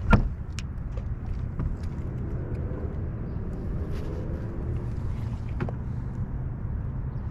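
Steady low rumble from a fishing boat on the water, with a few light knocks and clicks, the loudest right at the start.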